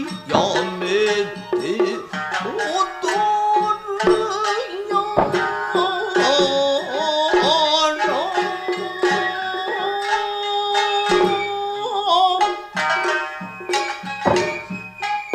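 Nagauta music: shamisen and Japanese hand drums striking sharply, with a wavering sung or flute melody over them.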